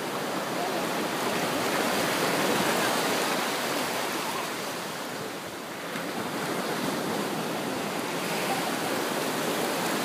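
Surf washing up a sandy beach at the water's edge: a steady rush of small breaking waves that swells and eases, quietest about five and a half seconds in.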